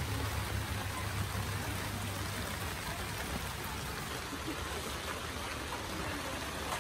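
Steady hiss of rain falling, with a low rumble that fades about two seconds in.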